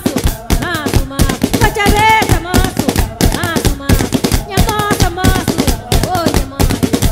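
Batuku: a group of women singing together over fast, sharp slaps of tchabeta pads beaten with the hands, the slaps the loudest part.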